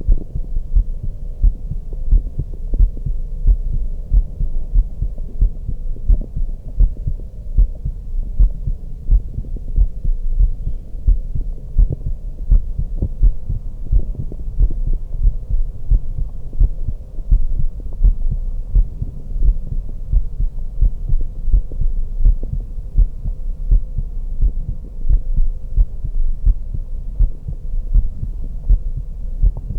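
A woman's heartbeat heard through a stethoscope: regular, steady low thumps.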